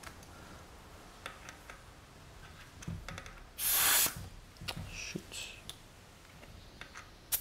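A short hiss of air escaping from a bicycle tyre valve, about half a second long, a little past the middle, amid faint clicks of handling at the valve.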